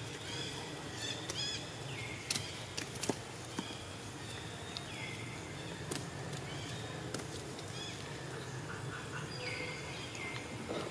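Several short, high-pitched animal calls, each falling in pitch, over a steady low background. A few sharp clicks and knocks are scattered through it.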